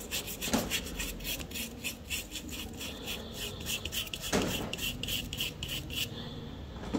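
Paintbrush bristles rubbing over cardboard in quick, repeated scratchy strokes, several a second, pausing briefly near the end.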